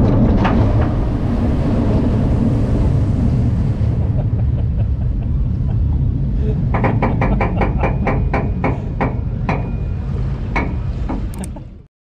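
A water coaster boat moving along the water, heard as a heavy steady rumble of wind and water on the rider-mounted microphone. From about halfway, a regular clicking of about three ticks a second joins in, then the sound cuts off just before the end.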